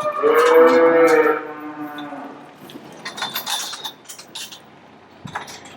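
A heifer gives one long moo lasting about two and a half seconds, dropping a little in pitch toward its end. It is followed by scattered light metallic clinks and rattles.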